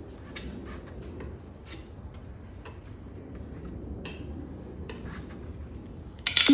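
Scattered light clicks and scrapes of a long screwdriver and hand tools working a new tire's bead onto a small tractor's steel wheel rim, then a loud knock near the end.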